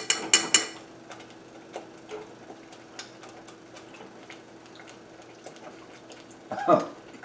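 A metal spoon clinks against the saucepan a few times, ringing briefly, as it is dipped into the sauce. Then the simmering barbecue sauce ticks and pops faintly and irregularly over a steady low hum, and near the end a short voiced "hmm" of tasting.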